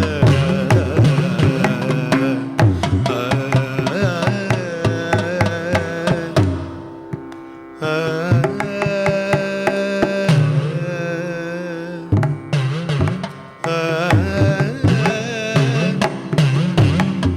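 Live South Indian classical music: a melody with gliding, wavering ornaments over steady held tones, with quick hand-drum strokes. The drumming drops out twice, leaving the sustained melody alone for a second or so each time.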